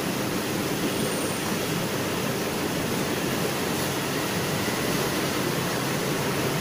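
A steady, even rushing noise that holds level without a break.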